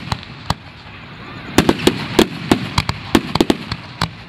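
Aerial fireworks display: a bang or two in the first half second, then from about a second and a half in a rapid string of shell-burst bangs and crackles, with one last bang near the end.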